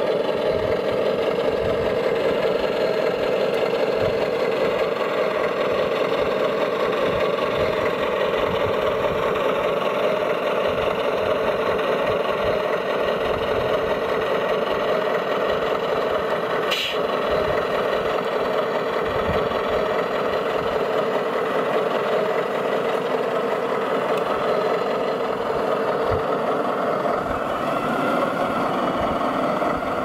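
Radio-controlled model trucks running on gravel: a steady, mid-pitched engine drone, with one sharp click about seventeen seconds in.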